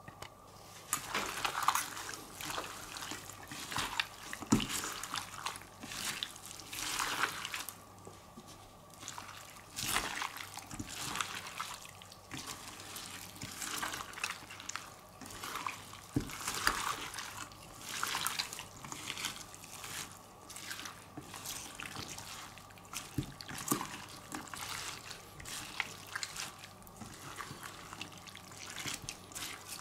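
Pork neck steaks being mixed through a wet marinade of sliced onions, spices and brandy: irregular wet squishing and rustling that comes and goes.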